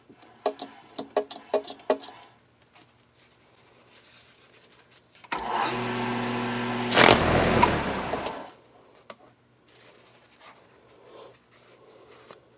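Wood lathe motor switched on, running steadily for about three seconds, then switched off. Before it, a quick series of clicks and knocks.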